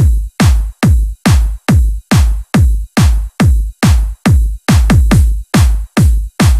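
Electronic dance music intro: a heavy drum-machine kick drum beating steadily, about two and a half beats a second, each beat dropping in pitch into a long low boom.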